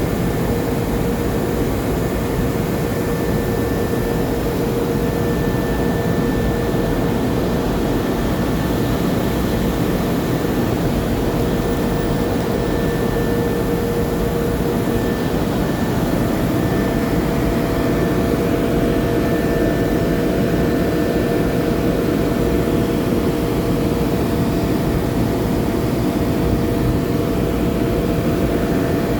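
Steady hiss and hum of TIG welding, continuous and unchanging, with a few constant tones held under the noise.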